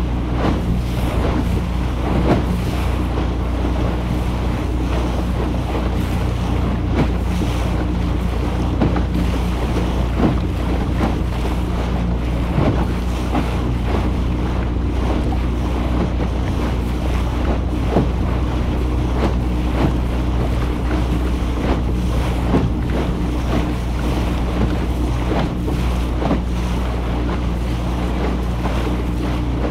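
Boat engine running at a steady speed with a constant low hum, under water splashing and rushing past the hull and wind buffeting the microphone.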